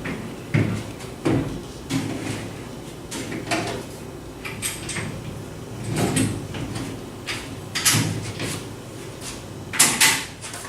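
Tree stand platform sections knocking and scraping together as they are fitted into place and bolts are pushed through the holes: a string of irregular clunks, the loudest two close together near the end.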